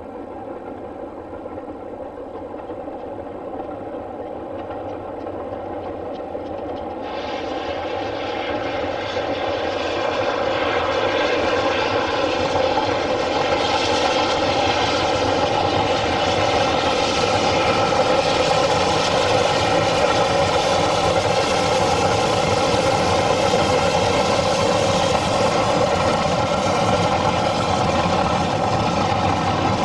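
Railway train running, growing louder over the first ten seconds and then holding a steady drone, with a brighter, hissier edge coming in about seven seconds in.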